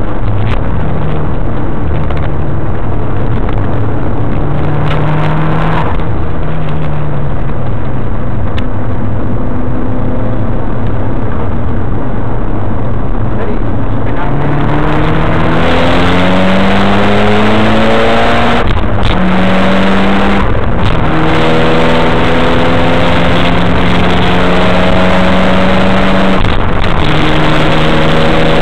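Mitsubishi Lancer Evolution wagon's turbocharged four-cylinder engine under hard acceleration on a circuit, heard from inside the car over heavy road and wind noise. The note climbs through the revs and drops sharply at upshifts, twice in quick succession past the middle and once more near the end.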